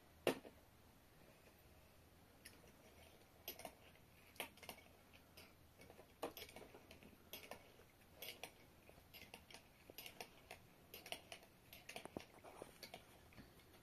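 Metal teaspoon clinking against a small glass of tea as it is stirred: faint, irregular light ticks, with one sharper click right at the start.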